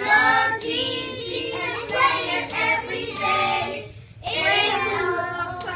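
A class of young children singing a song together in unison, partly in Spanish and partly in English, with a short break about four seconds in.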